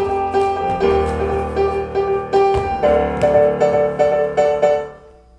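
Piano playing the introduction to a show-tune opening number: repeated chords in a steady pulse, changing chords twice before dying away just before the end.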